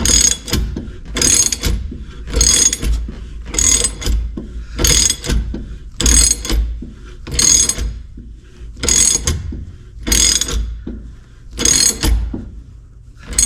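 Socket ratchet clicking in steady repeated strokes, about one every second and a bit, as it turns a wheel-bearing press tool's forcing screw to draw the bearing into the rear hub carrier.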